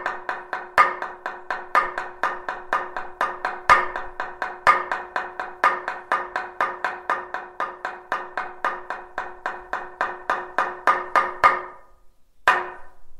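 Monastic wooden semantron (talanto) beaten with a wooden mallet: a fast, even run of hollow wooden knocks, about four a second with louder accented strokes between, quickening near the end, then breaking off and followed by a single knock. It is the Orthodox monastery's call to vespers.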